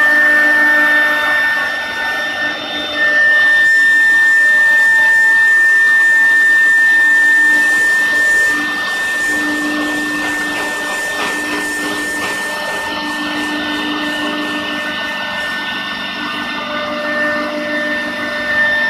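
CNC router's high-speed electric spindle motors running with a steady high-pitched whine and a lower hum. The sound is loudest for a few seconds, then drops somewhat about eight seconds in.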